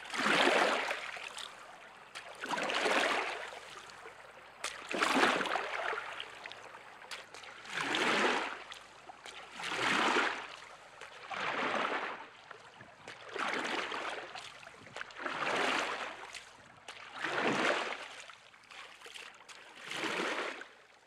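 Canoe paddle strokes through calm water: a steady rhythm of swishing splashes, one stroke about every two seconds.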